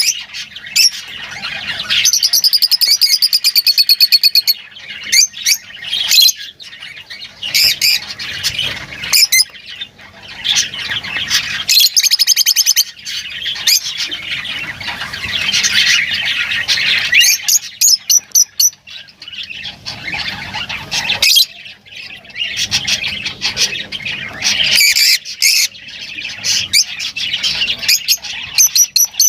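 Lovebirds chattering with shrill squawks and chirps, with a fast buzzing trill about two seconds in and another around twelve seconds.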